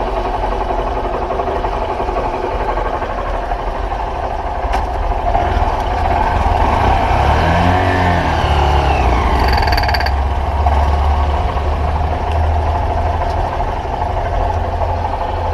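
Honda CG 125 Fan's single-cylinder four-stroke engine running in gear under load from the front brake, getting louder for a few seconds in the middle, with a metal-on-metal noise that the owner traces to a worn-out cam chain whose tensioner is at its limit.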